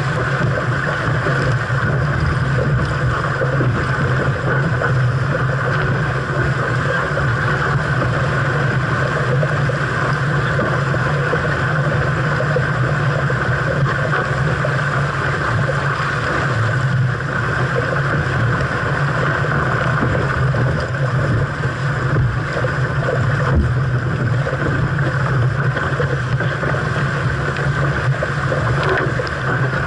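Steady rush of wind buffeting the microphone and water along the hull of a 470 sailing dinghy under way in a fresh breeze, with no break or sudden sound.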